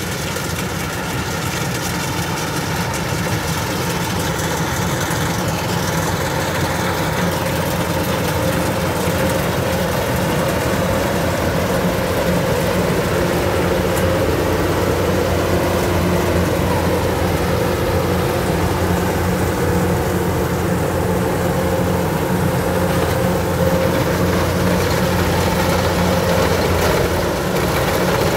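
Kubota DC-105X combine harvester running while harvesting rice: a steady diesel-engine drone with the machine's working clatter, growing louder through the first half as it draws closer.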